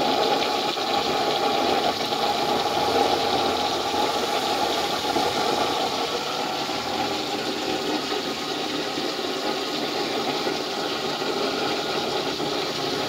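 Homemade used-oil and water drip stove burning without a blower: a steady, rough rushing noise of the flame, with a fine crackle through it.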